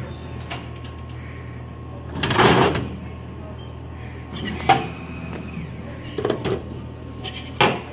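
Dixie Narco BevMax DN5800 drink vending machine delivering a bottle: a loud rattle about two seconds in as the bottle arrives in the delivery port, then a sharp click, a few small knocks and a short thud near the end as the bottle is taken out through the port door. A steady low hum runs underneath.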